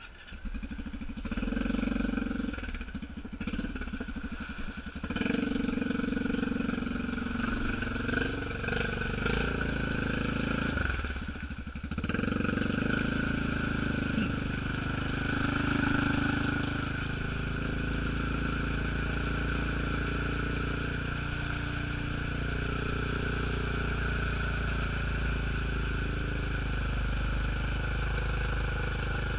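Honda Rubicon ATV's single-cylinder engine running in four-wheel drive as it paddles through a deep mud hole. The revs rise and fall for the first dozen seconds, dropping briefly about eleven seconds in, then hold steady.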